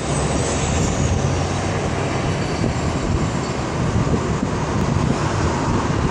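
Steady low engine rumble of a heavy vehicle over road traffic noise, with no clear rise in pitch.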